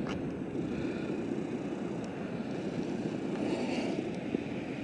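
Steady, muffled rushing of wind and rain, heard through a waterproof camera housing.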